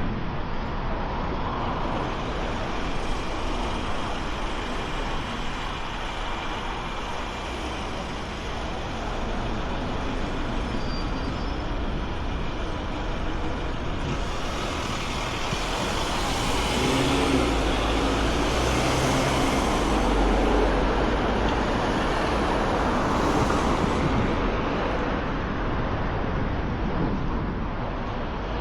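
Traffic on a busy city street: a steady wash of cars and heavier vehicles passing, swelling as a louder vehicle goes by in the middle.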